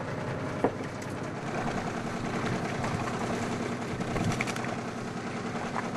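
A fishing boat's engine running steadily, with a sharp knock just under a second in.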